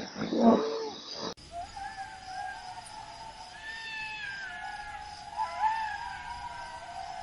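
Recorded wild animal calls: a short call, then after an abrupt cut several long, wavering calls that overlap and slowly fall in pitch.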